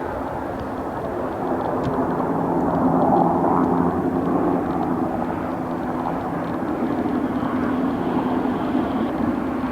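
Helicopter engine and rotor running steadily as it flies, swelling a little about three seconds in.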